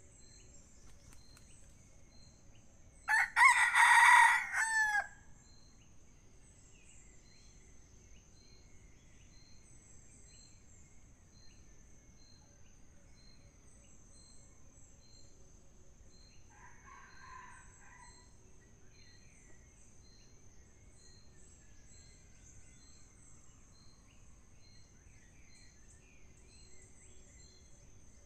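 A red junglefowl rooster crows once, about three seconds in, a loud crow under two seconds long that ends in a falling note. A much fainter short call comes about sixteen seconds in, over a steady high insect shrill.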